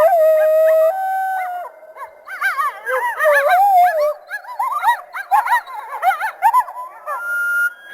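A chorus of coyotes yipping and howling, several voices overlapping. There are held howls at the start, rapid yips through the middle and a long high howl near the end.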